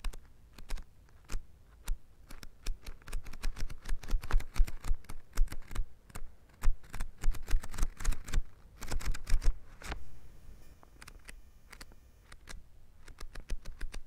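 Paper pages of a printed book flipping over in quick succession, a rapid, uneven run of crisp flaps and ticks. The flipping thins out about ten seconds in and picks up again near the end.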